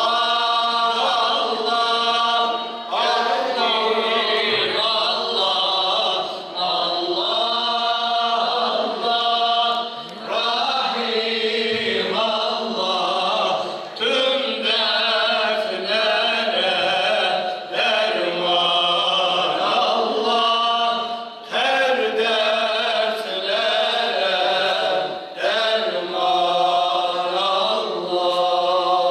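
A group of men singing a Turkish ilahi, a religious hymn, together into microphones, in phrases of a few seconds with brief breaths between them.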